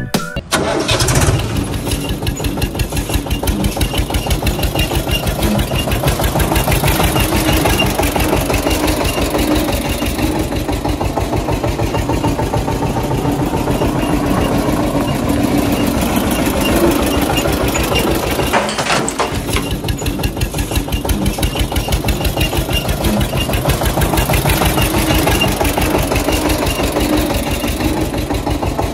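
Tractor diesel engine running steadily with a fast, even chugging beat, with a brief dip about two-thirds of the way through. It is a recorded engine sound laid over a diecast toy tractor.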